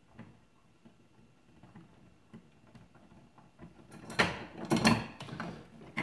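Light switch wall plate being worked free: faint ticks for the first few seconds, then a few louder scraping clatters about four seconds in as the plate comes off the wall.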